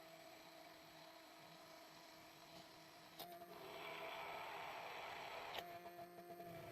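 Immersion blender running faintly with a steady hum while whipping oil and egg into homemade mayonnaise. About three seconds in, a click is followed by a louder hiss lasting a couple of seconds, which ends with another click.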